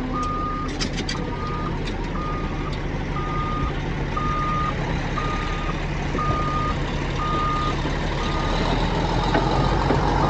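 Caterpillar bulldozer's diesel engine running while its backup alarm beeps about once a second, nine beeps that stop near the end as the engine gets a little louder.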